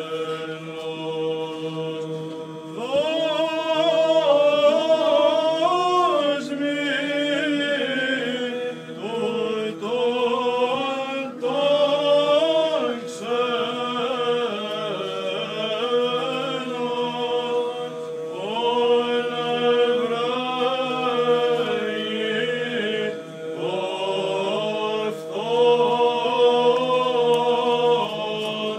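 Byzantine chant sung in unison by a small group of young male chanters, a slow, ornamented melody over a steady held drone note (ison).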